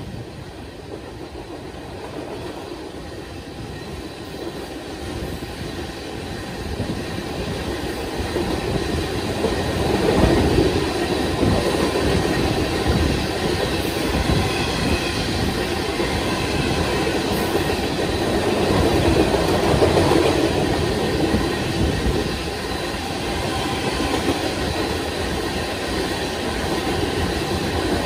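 Open-top ballast cars of a Union Pacific freight train rolling past close by: a steady rumble and clatter of steel wheels on the rails, getting louder over the first ten seconds or so and then holding.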